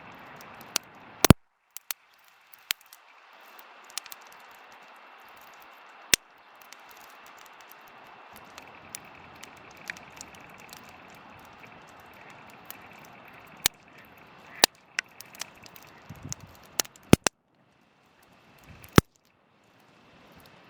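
Wood fire crackling: irregular sharp pops over a steady hiss. Near the end the hiss drops out for a couple of seconds, leaving a single pop.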